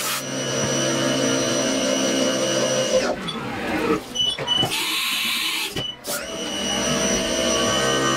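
Haas TM-1 CNC mill's spindle running and an end mill cutting aluminium under flood coolant, a steady machine whine with cutting noise. Midway the cut stops and the sound breaks up, with a short hiss. Steady milling resumes near the end.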